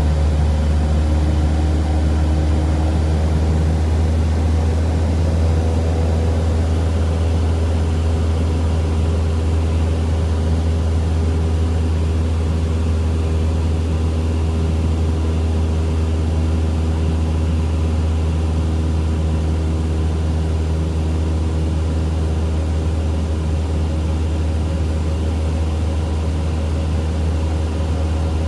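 Cessna 172 Skyhawk's piston engine and propeller running steadily in cruise, heard as a constant low drone inside the cabin.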